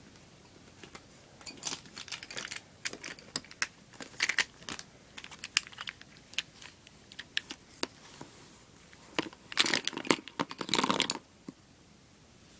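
Plastic art markers and pens clicking and clattering against each other as they are handled and set down on paper, in scattered knocks with a busier run of clatter about ten seconds in.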